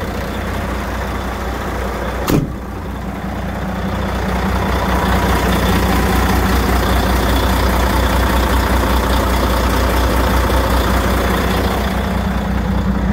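Diesel engine of a 2004 Volvo highway tractor, taken to be a Volvo D12, idling steadily, growing louder about four seconds in. A single sharp knock sounds about two seconds in.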